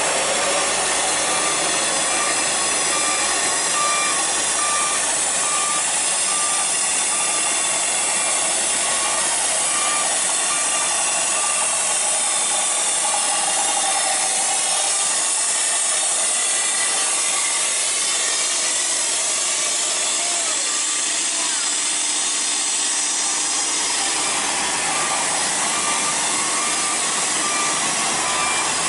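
Steady, loud mechanical noise of heavy vehicles at work: a backhoe loader and a loaded truck running, with a regular beeping through the first third and again near the end.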